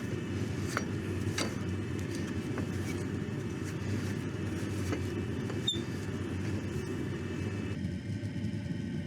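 Diesel parking heater running: a steady low rumble of combustion and blower, with a few faint clicks, and some of its higher hum dropping away about eight seconds in.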